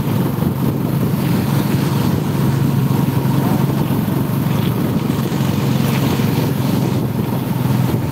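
Tricycle's motorcycle engine running steadily while riding, with wind buffeting the microphone.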